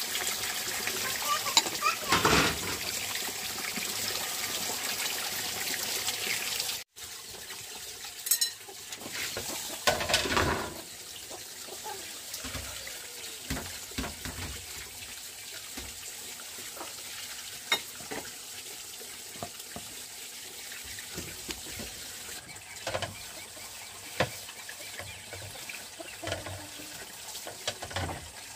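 Water running steadily, breaking off abruptly about seven seconds in. Afterwards, a quieter trickle with scattered light knocks and clinks.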